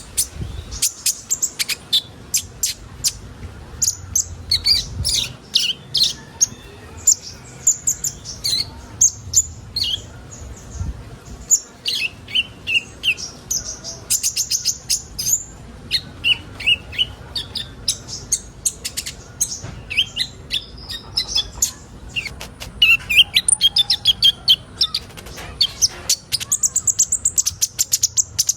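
Several sunbirds, the 'kolibri ninja' of Indonesian bird keepers, chirping and singing together: a busy chorus of quick, high-pitched calls and short trills, with fast runs of rapid ticking notes near the end.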